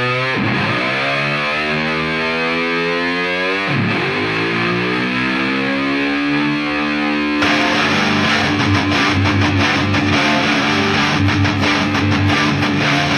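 Rock music with sustained distorted electric guitar chords that swell and sweep. About seven seconds in, it turns fuller and louder, with a steady run of beats.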